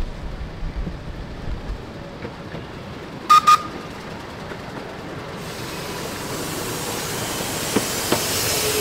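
A 12-inch gauge diesel locomotive arriving with its passenger train: two short toots of its whistle about three seconds in, then the train's running noise grows steadily louder as it rolls in, with two sharp clicks near the end.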